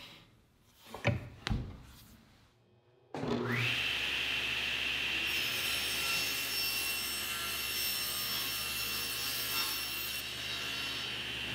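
Two short knocks, then a SawStop table saw starts about three seconds in, its whine rising quickly to a steady high tone. The blade rips a 3/4-inch plywood drawer back lengthwise, adding a hissing cut from about five to ten seconds in, and the saw keeps running after the board is through.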